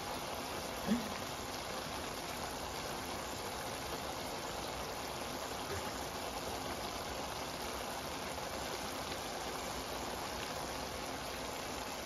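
Stir-fried mung bean sprouts and vegetables simmering in beer in a wok, nearly done: a steady, even sizzle. There is one short vocal sound about a second in.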